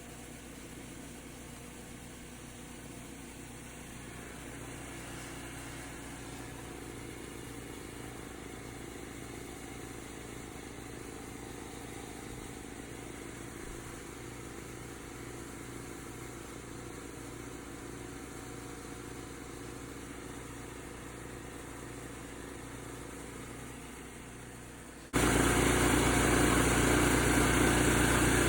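Engine of a 30-gallon service-truck air compressor package running steadily under a pump-up test. About 25 s in, the sound jumps suddenly much louder and stays steady.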